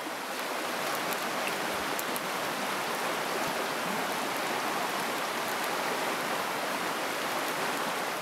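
Shallow stream rushing over rocks: a steady, even rush of water, with a few faint ticks now and then.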